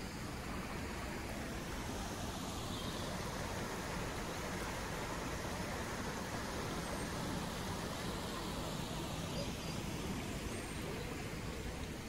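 Steady rush of flowing water, an even noise that holds the same level throughout.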